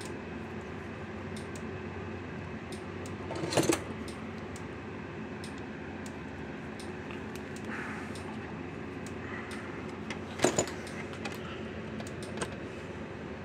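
Small clicks and rattles of a hand tool and wire being handled, with two louder sharp clicks about three and a half and ten and a half seconds in as a new spade terminal is crimped onto the battery lead and fitted. A steady low hum runs underneath.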